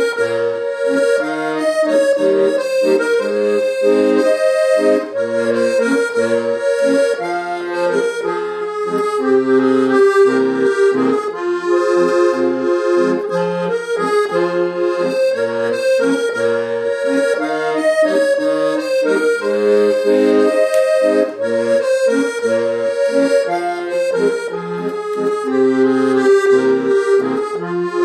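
Accordion playing a song tune on its own, the melody held in long notes over a regular bass-and-chord accompaniment from the left hand.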